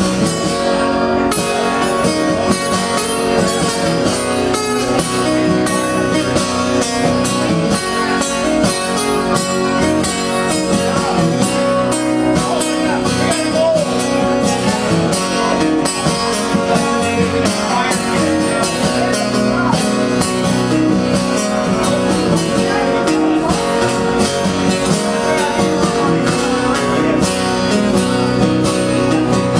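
Two acoustic guitars played together live, strummed in a steady rhythm.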